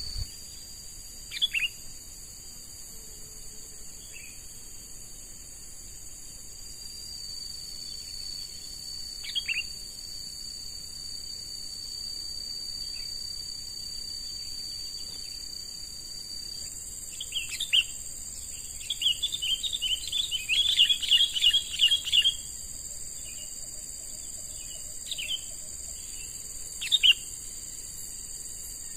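Sooty-headed bulbul (kutilang) calling: short, sharp calls every few seconds and a quick run of chattering notes about two-thirds of the way through, over a steady high trilling of insects.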